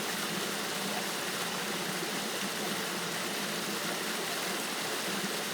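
Small waterfall on a creek, the water rushing steadily and evenly.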